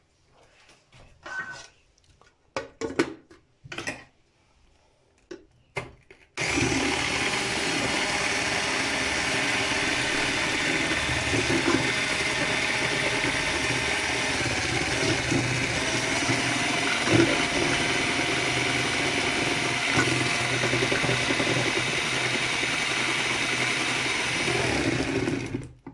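A few knocks and clicks, then about six seconds in an 800 W electric hand mixer starts and runs steadily at one speed, its twin beaters whisking a thin batter of eggs, sugar, oil and milk in a plastic bowl. It stops suddenly near the end.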